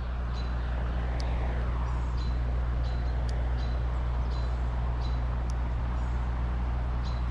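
Steady low hum under outdoor background noise. A passing sound falls in pitch about a second in, like a vehicle going by.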